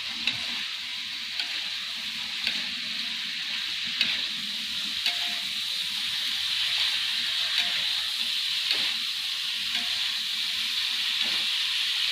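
Teri (small anchovies) frying in hot oil in a pan: a steady sizzle, with sharp ticks of a spatula against the pan every second or so as the fish are stirred.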